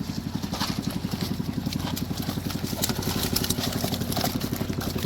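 A small engine running steadily at idle, with a fast, even pulsing and a low hum.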